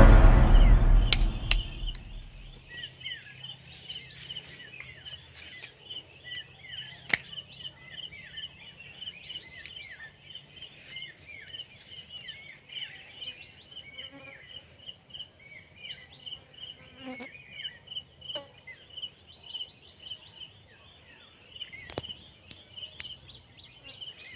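Insects chirping and trilling: a steady very high trill, a regular chirp about twice a second, and many short falling chirps, with a few faint clicks. Background music fades out in the first two seconds.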